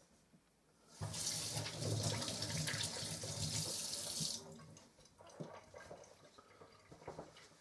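Kitchen tap turned on about a second in, water running hard into a steel sink for about three seconds, then shut off, followed by faint handling sounds.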